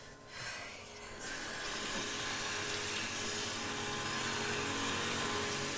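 Kitchen sink tap running, starting about a second in: a steady hiss of water pouring into the sink and over a pair of hands held under the stream.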